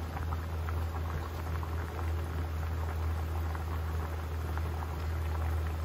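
Pasta water at a rolling boil in a large pan: dense bubbling and popping over a steady low hum.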